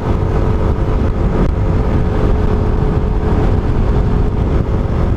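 Motorcycle cruising steadily along a road: a dense, unbroken low rumble of wind on the helmet-mounted camera's microphone, with a faint steady engine hum underneath.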